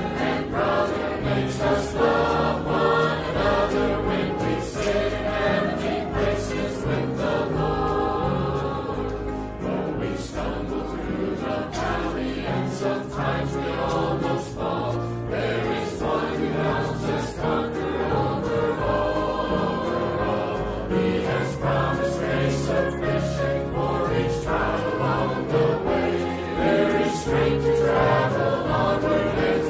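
Mixed church choir of men's and women's voices singing a gospel hymn, with steady low notes held beneath the voices.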